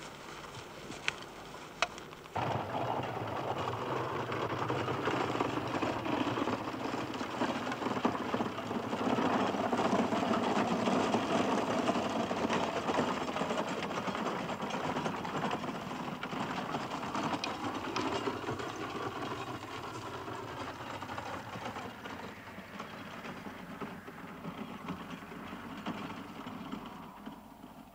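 Horse-drawn cart rolling along, a steady rattling clatter that starts suddenly a couple of seconds in, is loudest around the middle and fades toward the end.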